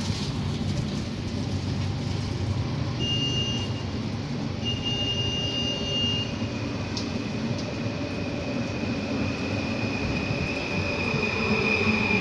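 PKP Intercity ED160 (Stadler FLIRT) electric multiple unit moving along the platform, with a steady low rumble of wheels on rail. A high steady whine comes in twice, briefly, about three and five seconds in, then returns at about six seconds and holds, loudest near the end.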